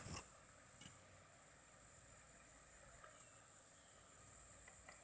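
Near silence: a faint steady high whine, with a couple of faint ticks about one second and three seconds in.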